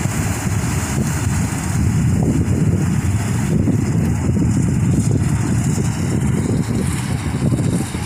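Loud, fluttering low rumble of wind buffeting the microphone, over a combine harvester running at a distance as it cuts wheat.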